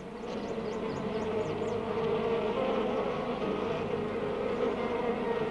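A bee buzzing at flowers while it forages: a steady hum that grows a little louder.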